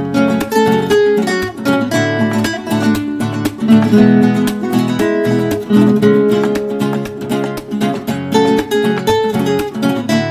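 Background music: acoustic guitar, a quick run of plucked and strummed notes.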